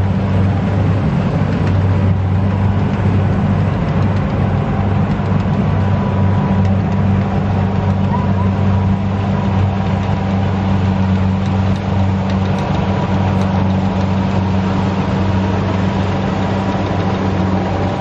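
Kubota rice combine harvester running steadily under load, a deep, even engine hum with a constant mechanical din over it.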